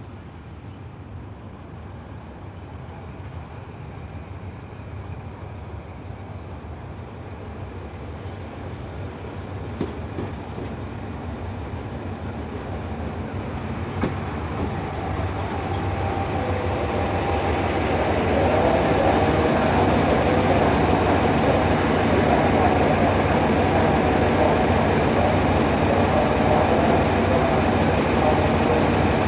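Hitachi diesel-electric locomotive No. 4512 arriving with its passenger train and rolling slowly past. The engine drone and running noise grow steadily louder for about eighteen seconds as it approaches, then hold steady as the locomotive passes close by. Two sharp clicks come partway through.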